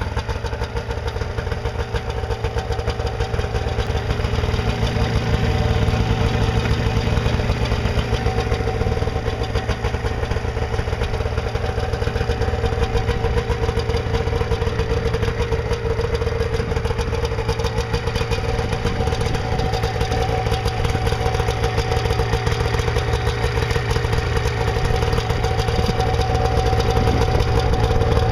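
1991 Arctic Cat EXT Special snowmobile's 550 two-stroke engine idling steadily, a little louder from about five seconds in.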